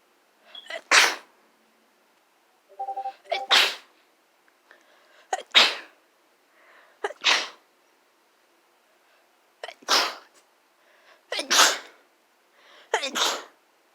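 A person sneezing seven times in a row, roughly every two seconds, each sneeze a short sharp burst with a brief smaller sound of the build-up just before it.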